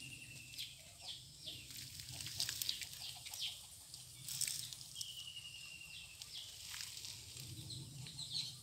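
Faint chickens calling, with two drawn-out high calls, one at the start and one about five seconds in, and a few short chirps in between.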